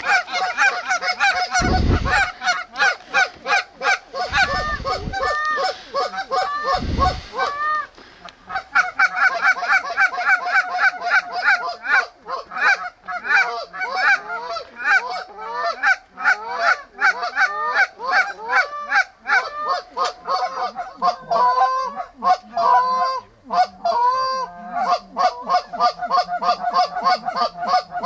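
A flock of Canada geese honking, many birds calling over one another in a dense, continuous chorus. Three short low rumbles break in about two, four and a half and seven seconds in.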